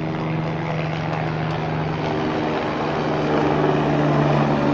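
Helicopter in flight, its engine and rotor giving a steady pitched sound that grows louder as it comes nearer.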